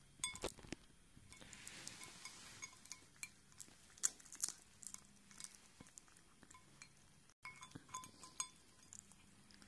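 A cat eating from a glass bowl: irregular sharp clinks as its teeth and the food knock against the glass, with chewing in between.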